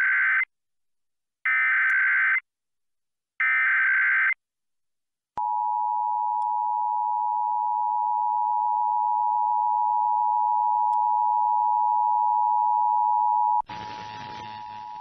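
Emergency Alert System broadcast tones. Three harsh, warbling digital data bursts about a second long and a second apart carry the alert's header. After a click comes the steady two-tone EAS attention signal, held for about eight seconds. Near the end the tone drops in level and goes on under a hiss.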